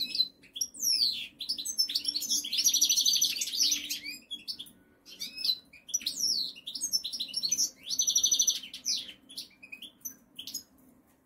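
European goldfinch singing: a fast twittering song of high notes that sweep up and down, with two dense trilled passages about two and a half and seven and a half seconds in, thinning to scattered notes near the end.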